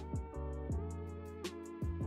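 Background music with a steady beat: quick, regular hi-hat ticks over deep kick drums that drop in pitch, with held chords.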